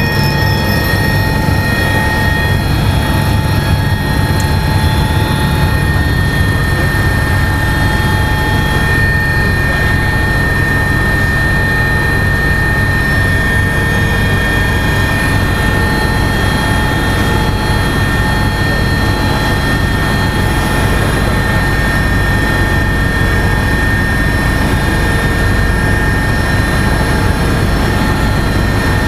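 Agusta A109S Grand helicopter in flight, heard from inside the cockpit: a steady, loud blend of twin-turbine whine, with several constant high tones, over the low rumble of the rotor.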